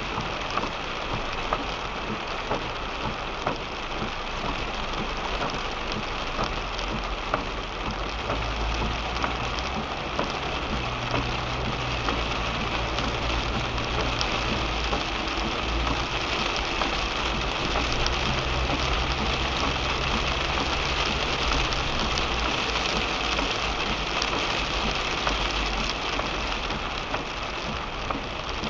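Rain falling on a car, heard from inside the cabin: a steady hiss of rain dotted with many small drop ticks, over a low rumble and hum that grows louder in the middle.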